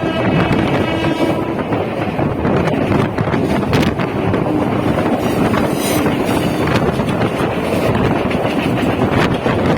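ICF electric multiple unit (EMU) train running past at close range: a loud steady rumble with repeated knocks from the wheels, and wind buffeting the microphone.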